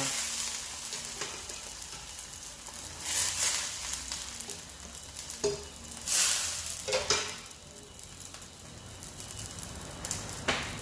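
Ladlefuls of soup stock poured into a stainless-steel pot of sautéed onions, splashing in several separate pours, the loudest about six seconds in, with a few sharp clinks of the metal ladle against the pot.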